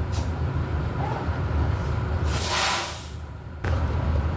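Volksbus 17.230 OD city bus running on the road, heard from on board as a steady low rumble. About two seconds in, a burst of hissing rises and fades. Just after it the sound drops briefly, then comes back abruptly.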